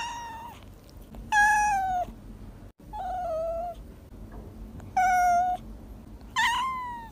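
A cat meowing five times in high, drawn-out meows, each falling slightly in pitch at the end.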